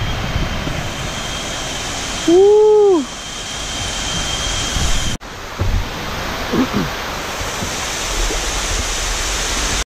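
Waterfall cascading over rock into a pool: a steady rush of falling water. A person's loud "Woo!" cuts through it about two and a half seconds in.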